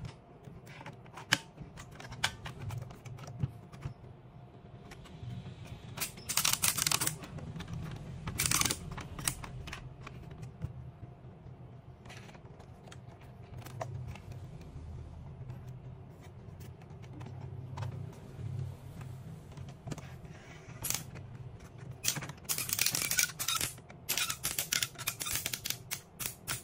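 Handling noise from an RC semi-truck model and its lowboy trailer: scattered small clicks and knocks as the cab is picked up and the trailer's loading ramps are folded, with rapid clattering clusters about six seconds in, around eight seconds and again near the end.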